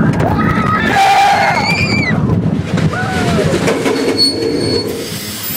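Several voices shouting and whooping over a loud, rough rumbling noise, with a few short rising-and-falling yells in the first three seconds.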